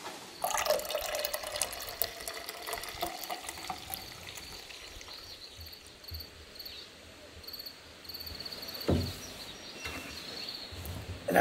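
Liquid poured into a cup for the first few seconds. Then faint insects chirp in an even, repeating rhythm, with a single knock about nine seconds in.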